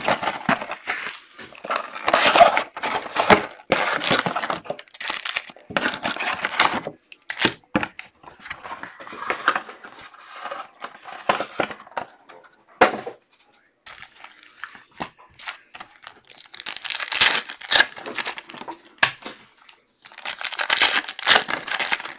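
Foil trading-card pack wrappers being torn open and crinkled by hand, in irregular bursts of tearing and rustling with a couple of sharp taps in between.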